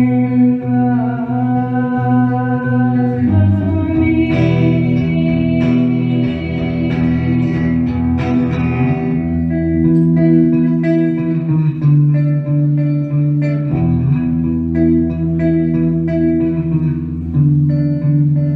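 Live electric guitar music with a repeating melody over sustained chords. The chord changes about three seconds in and again about three-quarters of the way through.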